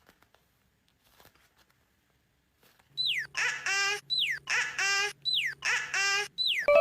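Electronic sound effect: a falling whistle followed by a warbling tone, repeated three times over a low hum, then a bright chime of several ringing notes near the end.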